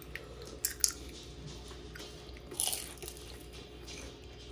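Crispy deep-fried egg roll crunching as it is bitten into: sharp crunches just under a second in and again about two and a half seconds in.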